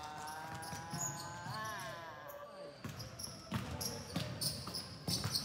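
A basketball being dribbled on a hardwood gym floor, with players running. A drawn-out voice is held through the first half, bending in pitch about one and a half seconds in, and the irregular bounces and footfalls grow more frequent and sharper in the second half.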